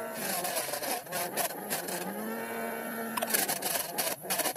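Small DC motor of a homemade chili cutter running, its whine sagging and climbing back up in pitch about three times as green chilies are pushed into the cutter. Rapid clicks as the chilies are chopped.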